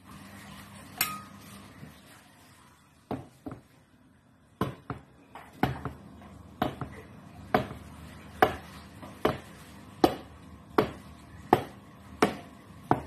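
Knife blade chopping through a log of potato and cornstarch dough and knocking on a wooden cutting board. After a few scattered knocks, the knocks settle into an even rhythm of about one a second.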